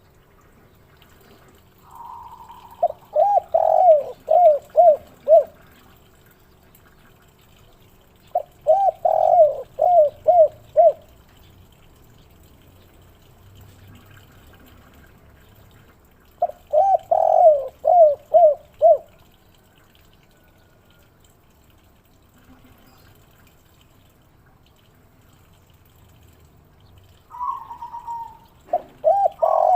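Spotted dove (derkuku) cooing its 'kuk 3' song: four phrases a few seconds apart, each a quick run of about five or six short, falling coos, some opening with a higher note.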